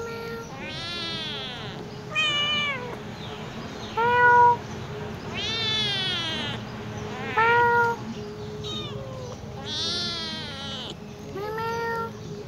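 Young tabby kitten meowing over and over, about nine high-pitched meows roughly a second apart, the loudest about four seconds in and again near eight seconds.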